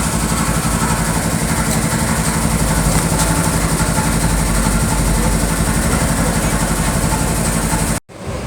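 A motor running steadily with a loud hiss over it; it cuts off abruptly near the end.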